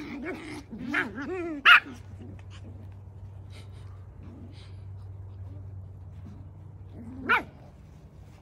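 Havanese puppies barking and yipping in play: a quick run of small high barks and yips in the first two seconds, the loudest just under two seconds in, then a quieter stretch broken by one more sharp yip near the end.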